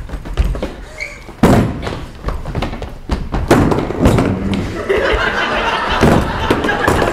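Metal-legged chairs being picked up and set down on a stage floor: several separate thuds and knocks, the loudest about one and a half seconds in.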